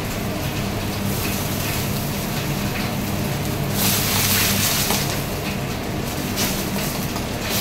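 Butter sizzling in a steel frying pan over a gas flame, over a steady low hum. About four seconds in the sizzle flares louder for a second or so as a spatula stirs the pan.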